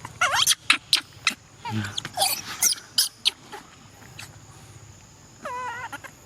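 A monkey calling: several short, sharp pitched cries in the first three seconds mixed with sharp clicks, then a longer wavering call near the end.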